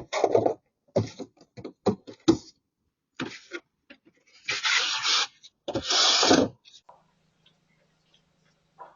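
Irregular scraping and rasping noises through a doorbell camera's microphone, the two longest and loudest coming about four and a half and six seconds in, then quiet apart from a faint steady hum.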